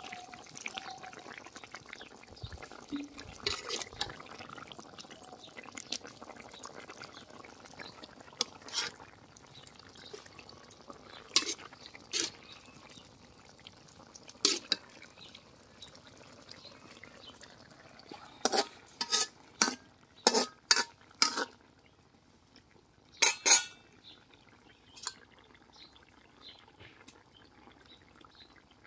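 Metal ladle scraping and clinking against a metal cooking pot and a serving bowl as curry is ladled out, with a little liquid pouring. There are sharp clinks throughout, and a quick run of them about two-thirds of the way through.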